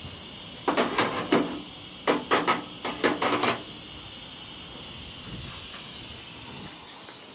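Two quick runs of sharp clicks and knocks, the first about a second in and the second from about two to three and a half seconds in, over a steady background hiss.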